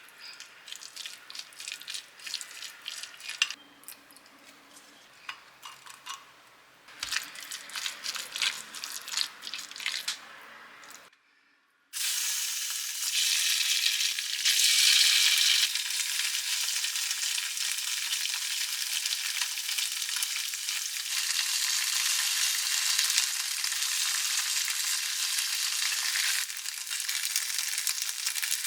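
Irregular light taps and clicks of kitchen preparation, then, after a short silent break about eleven seconds in, food sizzling steadily in a hot frying pan for the rest of the time.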